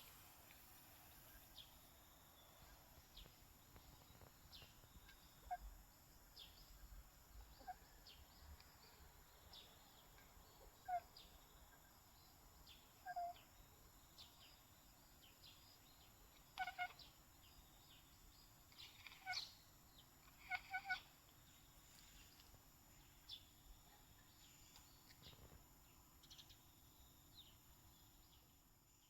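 A house cat chattering at birds: soft, clipped chirps, some in quick runs of two or three, with a cluster of the loudest about two-thirds of the way in. Faint, short high chirps from birds are scattered through the quiet.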